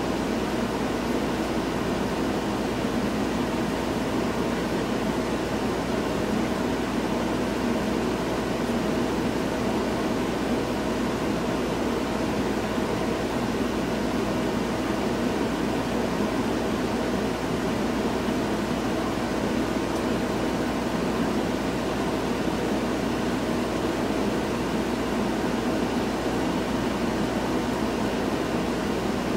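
Steady hum and hiss of a running fan-type appliance, with a few faint unchanging tones in it.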